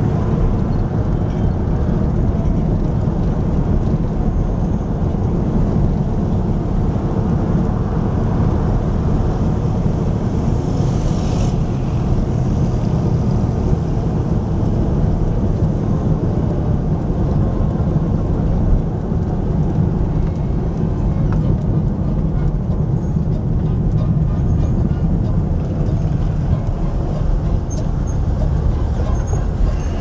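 A car driving, heard from inside the cabin: steady engine and road noise, with a brief hiss about eleven seconds in.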